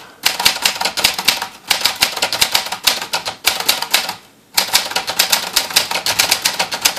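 1969 Olympia SF portable typewriter being typed on fast, a rapid run of key strikes with one short pause about four seconds in.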